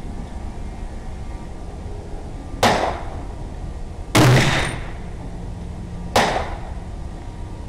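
Three rifle shots, spaced about a second and a half and then two seconds apart. The middle shot is the loudest and rings on longest.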